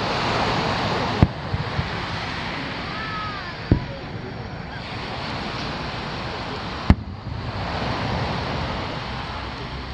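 Aerial fireworks shells bursting at a distance: three sharp bangs a few seconds apart, over a steady wash of surf.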